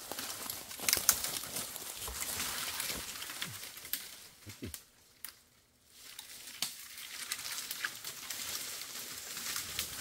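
Dry branches and brush rustling and crackling as they are handled and dragged, with a few sharp snaps; it stops for about a second around the middle, then resumes.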